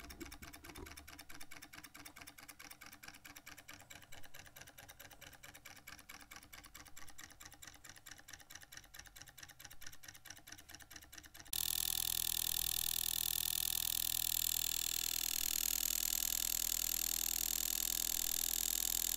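Froment-type electromagnetic model engine running, its contacts making a rapid, even clicking. About two thirds of the way through, the clicking gives way abruptly to a louder steady hiss.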